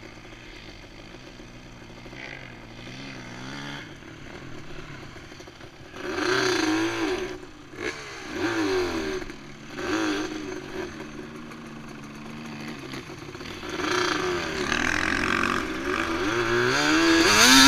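Dirt bike engines idling, with three short throttle blips about six, eight and a half and ten seconds in, then revving harder and louder near the end.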